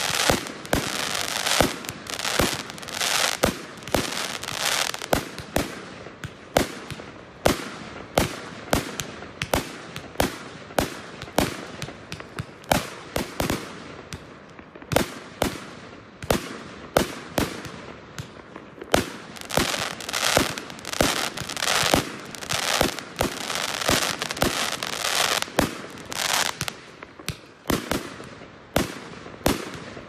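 Many fireworks exploding in quick, irregular succession: sharp bangs about two or three a second over a continuous rumble and crackle of further explosions.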